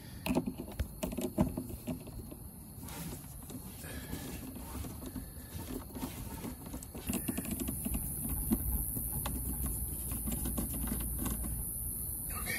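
Irregular light clicks, taps and rustling from hands and a screwdriver working wires and terminal screws inside a plastic solar combiner box, loudest in a cluster of clicks in the first two seconds. A faint steady hiss comes in a little past halfway.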